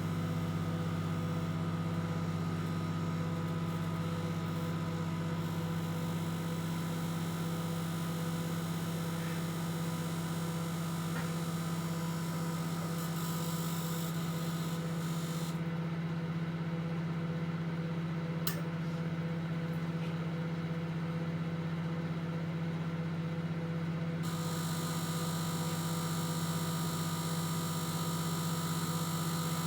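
Microwave oven running with a steady low electrical hum. A higher hiss on top cuts out for about eight seconds midway and then returns, with a single sharp click in between.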